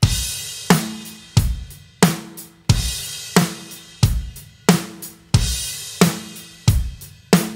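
Acoustic rock drum kit playing a straight rock beat at about 90 beats a minute, bass drum and loud snare backbeat alternating, with a crash cymbal hit on the downbeat of each bar: three crashes, about 2.7 s apart.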